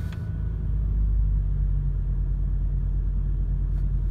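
1989 Ford Probe GT's turbocharged 2.2-litre four-cylinder engine idling steadily just after starting, at a fast idle of about 1,500 rpm.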